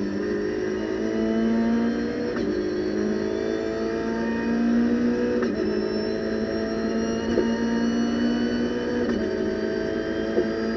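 Renault Clio Cup race car's 2.0-litre four-cylinder engine at full throttle from inside the cockpit, its pitch rising through the gears. Three upshifts, about two, five and nine seconds in, each drop the revs before they climb again. A few brief knocks in the second half.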